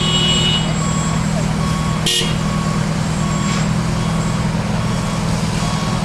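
Fire apparatus engines running with a steady low drone while pumping a water stream, with an electronic beep repeating roughly every second. A short sharp hiss cuts in about two seconds in.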